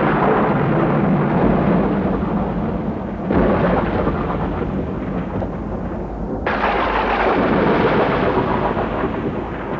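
Deep, loud rumbling sound effect in three long swells, each starting suddenly and slowly fading.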